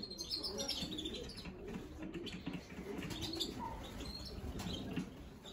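Pigeons cooing in a low, continuous murmur, with many short high chirps scattered over it.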